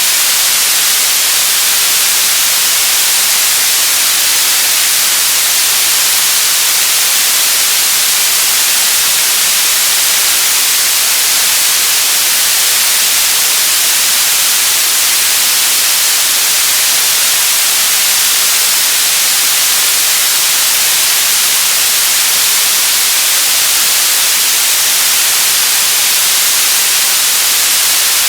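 TV static: a steady, loud hiss of white noise, weighted to the treble, that holds level without change.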